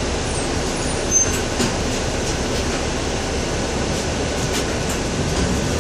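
Cabin noise inside a Mercedes-Benz Conecto II city bus under way: a steady rumble of engine and road, with a few faint clicks.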